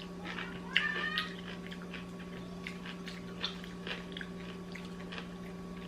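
Mouth noises of someone chewing a pickle wrapped in cotton candy: soft irregular crunches and smacks over a steady electrical hum, with one short high-pitched squeak about a second in.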